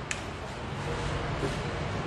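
Room tone: a steady hiss and low hum, with a faint click just after the start.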